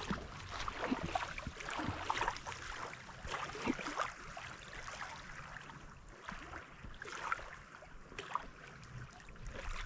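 Small waves lapping at the lake's edge: a light, irregular splashing.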